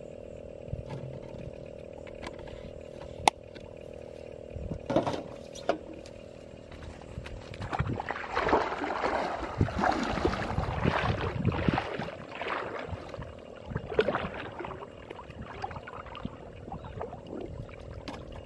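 Water splashing and sloshing as a person wades through a muddy pond pushing a metal pot, loudest for several seconds in the middle and again briefly later. A few sharp clicks and knocks come earlier, over a steady low hum.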